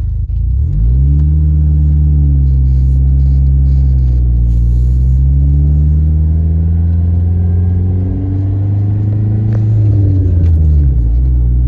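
Freshly rebuilt Dodge SRT-4's turbocharged 2.4-litre four-cylinder pulling away under load. The engine note climbs about a second in, holds and sags, climbs again, then drops sharply near the end as a gear is changed.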